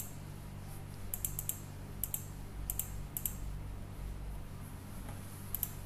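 Computer mouse clicking: several sharp short clicks, mostly in quick pairs, over a steady low electrical hum.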